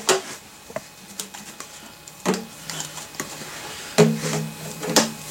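PVC pipe risers and fittings knocking and clicking together as they are handled and pushed into place, a handful of sharp knocks, the loudest about four and five seconds in.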